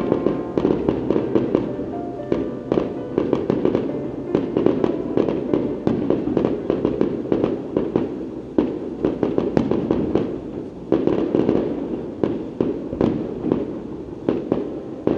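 Fireworks display: aerial shells bursting in a rapid, continuous string of bangs and crackles, with music playing underneath.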